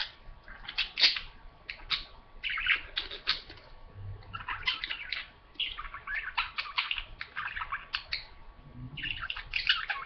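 Budgerigars chattering and warbling in busy bursts studded with sharp clicks, pausing briefly a couple of times.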